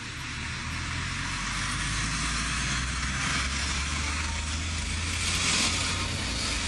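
An engine running steadily at idle, a low even drone under a steady hiss that swells slightly near the end.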